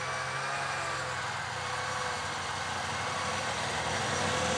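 Snowmobile engine running steadily while towing a camper, drawing nearer and getting a little louder near the end.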